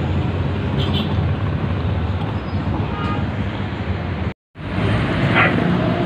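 Steady low rumble of motor traffic and vehicle engines, broken by a brief dropout to silence about four and a half seconds in.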